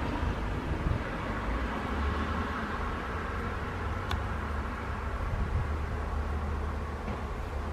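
Steady wind noise on the microphone with a low rumble, and a single faint click about four seconds in.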